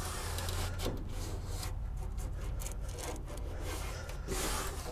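Hands rubbing and pressing an adhesive-backed step tread cover down onto an RV entry step: a scratchy rubbing in short strokes, louder at the start and again near the end.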